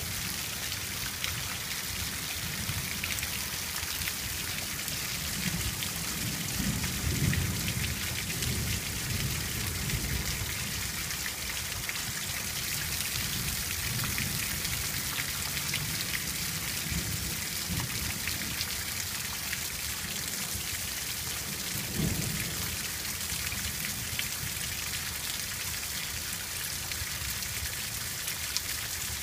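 Steady rain falling, a continuous hiss of drops on the ground and leaves, with low rumbles that swell about seven seconds in and again briefly a little past twenty seconds.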